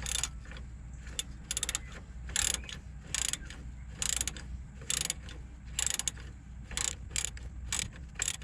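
Socket ratchet wrench clicking in short repeated bursts as the strut's two lower mounting bolts are worked loose.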